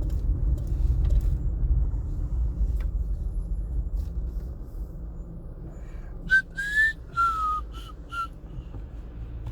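A person whistling a short breathy phrase of about five notes, one gliding up and one gliding down, about six seconds in. Under it, the low rumble of the car's engine eases off as the car pulls into a parking space.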